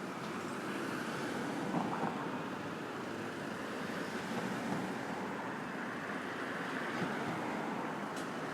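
Steady wash of city street traffic, a continuous rush of passing vehicles with gentle swells and no single standout event.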